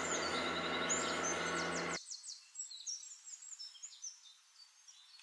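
Small birds chirping in the background, many quick high-pitched chirps and twitters over a steady low ambient hum. The hum cuts off abruptly about two seconds in, leaving only the fainter chirps.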